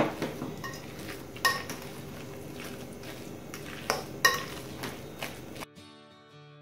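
A metal fork mashing boiled potatoes and milk in a glass bowl, scraping and clinking sharply against the glass several times: at the start, about a second and a half in, and twice around four seconds in. Near the end it cuts off suddenly and quiet acoustic guitar music takes over.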